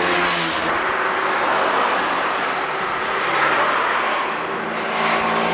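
Motorcycles riding past close by: a loud, steady rush of engine and road noise, with a low engine hum audible near the start and again near the end.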